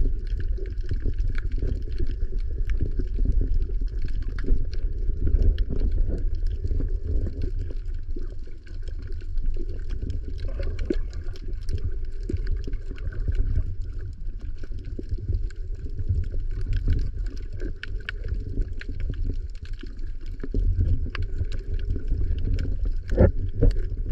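Underwater noise picked up by a submerged camera: a steady low rumble of moving water with many scattered faint clicks and crackles.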